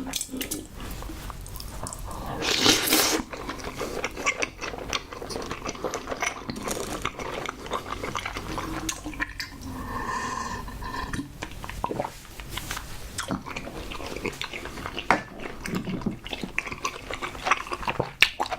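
Close-miked chewing and wet mouth sounds of someone eating soft cream bread with chewy tapioca pearls, full of small sticky clicks, with one louder, longer burst of noise about three seconds in.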